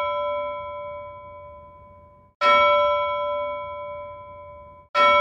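A bell struck about every two and a half seconds. It is already ringing at the start and is struck again about two and a half seconds in and near the end. Each clear, ringing tone dies away and cuts off abruptly just before the next strike.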